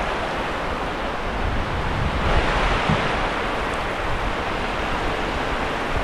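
Sea surf washing on a sandy beach, a steady rushing, with wind buffeting the microphone in low rumbles.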